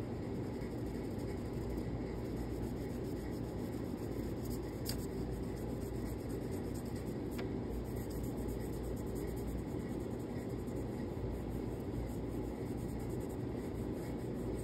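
Chalk pastel scraping softly on paper, then fingertips rubbing over the pastel-covered paper, over a steady low hum.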